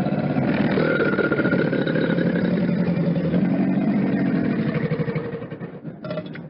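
Crocodile growling: a low, rough, rapidly pulsing rumble lasting about six seconds that fades out near the end.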